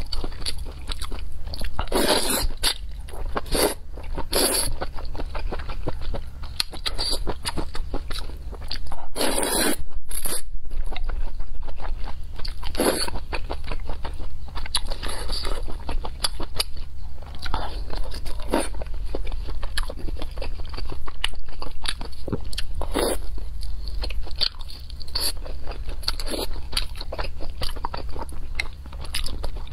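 Close-miked eating sounds: a person chewing noodles and soup-soaked food with many wet mouth clicks, and several louder slurps of noodles through the stretch.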